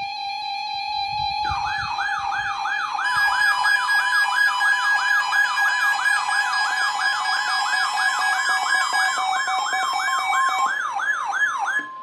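Electronic emergency-alert siren on a weather alert radio receiver. A steady beep tone breaks into a rapid rising yelp, repeating about three to four times a second, then cuts off suddenly.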